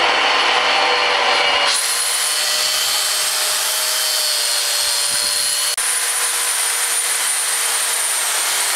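Hand-held angle grinders running against wood, one with a carving wheel hollowing a log and one with a sanding disc smoothing a carving: a steady high motor whine over the grinding noise. The sound shifts abruptly about two seconds in and again near six seconds.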